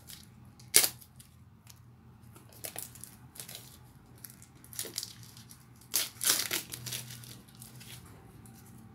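Plastic shrink wrap being torn and crinkled off a paperback book, in sharp crackling bursts. The loudest comes about a second in, and a cluster of them comes around six seconds in.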